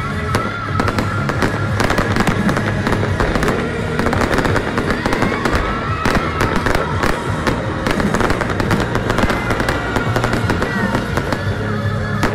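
Aerial fireworks going off in a dense run of cracks and pops, over loud background music.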